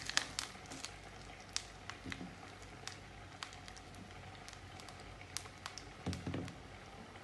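Mustard and cumin seeds spluttering in hot groundnut oil in a small stainless steel kadai: scattered sharp pops, thickest at the start and thinning out. A dull knock about six seconds in.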